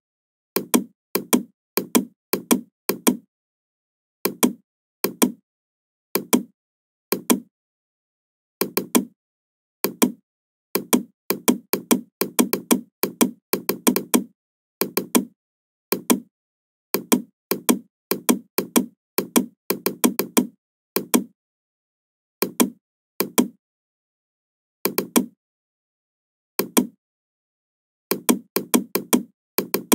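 Computer mouse and keyboard clicks: short, sharp clicks in irregular singles, pairs and quick clusters, with silence between them.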